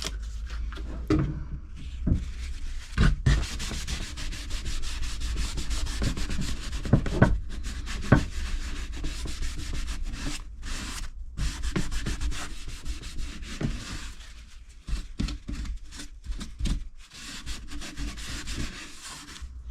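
Cloth rubbing back and forth over a plastic drain fitting, wiping it clean with isopropanol to prepare it for a fibreglass repair, in a steady run of scratchy strokes with a few light knocks.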